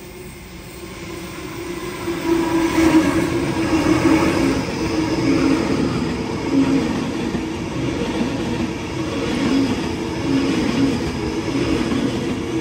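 Waratah double-deck electric train running close past, its rumble building over the first two seconds. Then a sustained rumble of wheels on rails with a steady electric hum from the traction motors.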